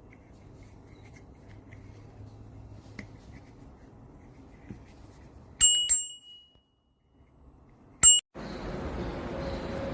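TOOPRE alloy bicycle bell rung twice in quick succession a little past halfway, each a bright, high ring that fades within about a second. A single short ding follows about two seconds later and is cut off abruptly. Faint handling noise comes before the rings.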